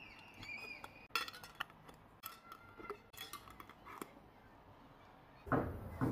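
Metal twist-off lids being set onto glass jars: a scatter of light clinks and taps, some with a brief metallic ring. A louder, different sound cuts in near the end.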